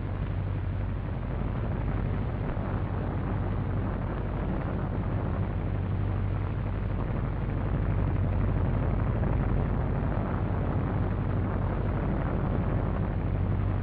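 Steady, dense roar of a formation of twin-engine bombers' engines in flight, with a constant low hum underneath, heard through a noisy 1940s film soundtrack.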